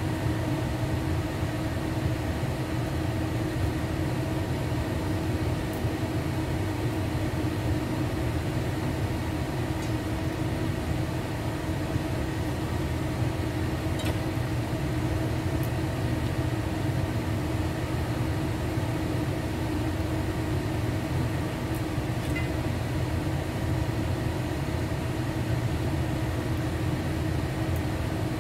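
Kitchen range hood's extractor fan running steadily, a constant hum with a fixed whirring tone, with a few faint light ticks.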